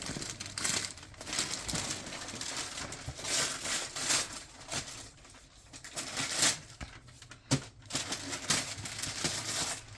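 Wrapping paper being torn and crumpled as a gift is unwrapped, in irregular rustling, crackling bursts.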